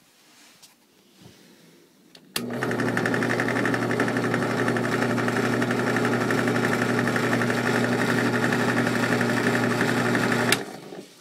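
Small electric motor, salvaged from a battery weed eater, spun up as a generator and whirring steadily with a low hum and a high whine. It starts abruptly about two seconds in and stops shortly before the end.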